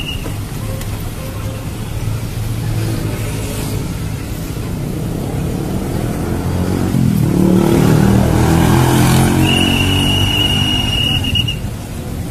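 Street traffic: a motor vehicle engine running, with one passing closer and louder partway through, its pitch rising and falling. A steady high beep lasts about two seconds near the end.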